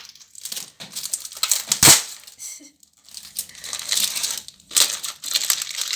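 Parcel packaging crinkling and rustling as it is torn and pulled open by hand, in irregular crackles with a sharper, louder one about two seconds in and a brief lull near three seconds.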